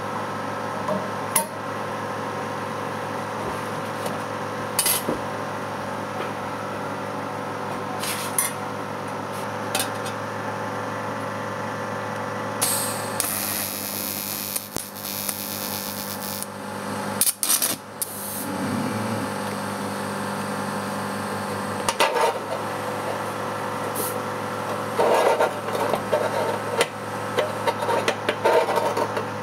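TIG welding set humming steadily, with scattered clicks. About 13 seconds in, an arc is struck and burns with a hiss for about three and a half seconds, then breaks off. Near the end come brief crackles and clicks as the tungsten electrode sticks to the work.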